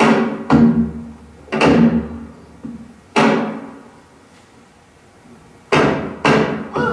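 Slow, irregularly spaced strikes of Korean traditional percussion opening the accompaniment for a dance, each hit ringing out and dying away. There are about seven strikes, with a longer pause of about two and a half seconds midway.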